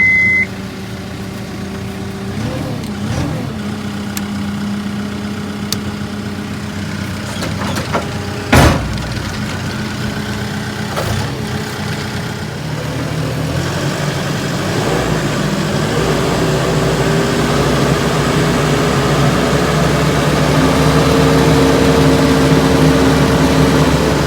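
Heavy equipment's engine running, with a steady beep that cuts off just after the start and one sharp knock about eight and a half seconds in. From about halfway on, the engine runs louder and higher under throttle.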